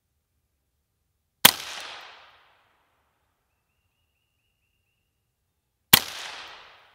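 Two single rifle shots from a Volquartsen VT2 rimfire takedown rifle fired in 17 HMR, about four and a half seconds apart. Each is a sharp crack followed by about a second of echo dying away.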